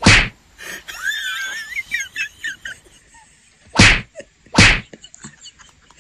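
Three short, sharp bursts of noise, one at the start and two about a second apart near the end. Between them comes a brief, high warbling chirp.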